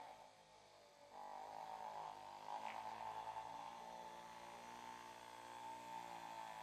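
Electric vibrating massage machine running with a steady buzz, fading briefly near the start and then coming back.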